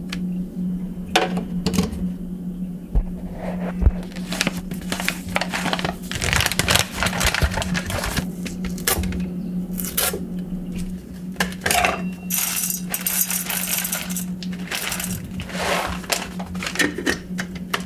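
Whole coffee beans rattling and clicking against hard plastic and metal as they are handled with a new coffee grinder, in irregular clusters of sharp clicks. A steady low hum runs underneath.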